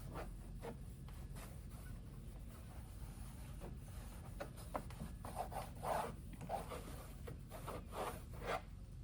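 Alcohol wipe being rubbed over the window glass and sill, cleaning it for adhesive: a string of short, uneven wiping strokes, busier and louder in the second half, over a low steady hum.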